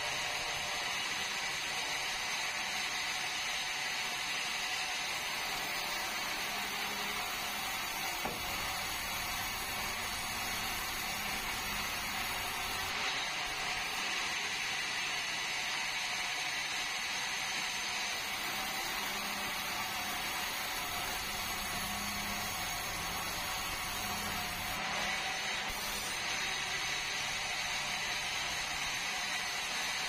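Vertical band sawmill running steadily, its band blade sawing red meranti timber on the carriage: an even, unbroken machine whine and cutting noise.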